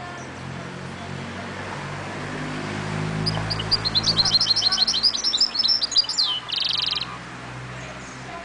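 Caged goldfinch × canary mule (mulet) singing, in the old 'forêt' song style: one fast run of high twittering notes lasting about three seconds, ending in a short buzzy trill. A faint steady low hum lies underneath.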